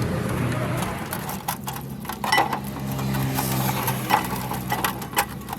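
Several sharp metallic clinks and taps, as from hand tools on metal parts, over a steady low engine hum.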